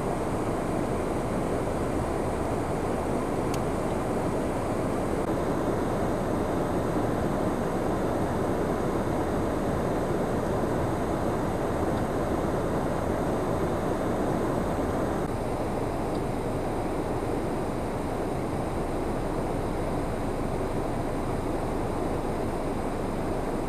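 Steady rushing noise with no clear tone or rhythm, easing slightly in its upper range about fifteen seconds in.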